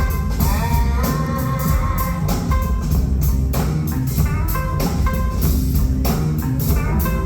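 Live rock band playing an instrumental stretch without vocals: guitar over bass and a drum kit.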